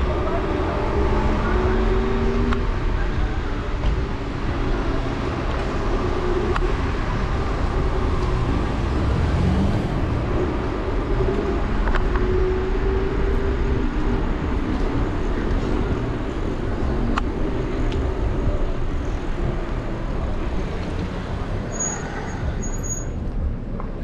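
Steady city street traffic and road noise heard from a moving electric scooter, with cars passing.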